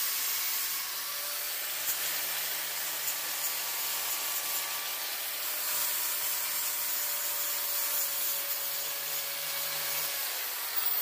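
Electric angle grinder with a green flap sanding disc grinding steel held in a vise, cleaning rust off down to bare metal ahead of welding. The grinder runs steadily, then is switched off about ten seconds in, and its motor winds down in a falling whine.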